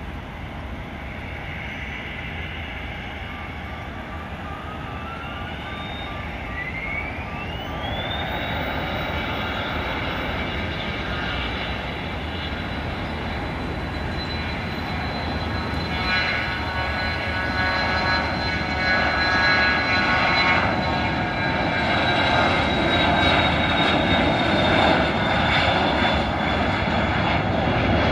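The twin Pratt & Whitney Canada PW306D1 turbofans of a Cessna Citation Latitude spooling up to takeoff thrust. A whine climbs steeply over about five seconds, then holds high and steady over a rush of jet noise. The noise grows louder as the jet accelerates down the runway and rotates for liftoff near the end.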